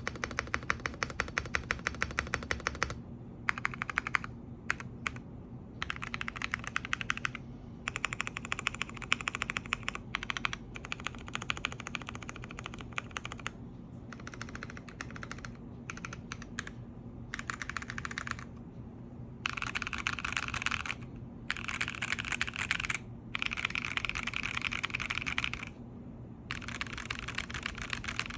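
GMK67 mechanical keyboard with Blue Velvet linear switches being typed on: runs of quick keystrokes broken by short pauses, with a fast even stream of strokes in the first few seconds.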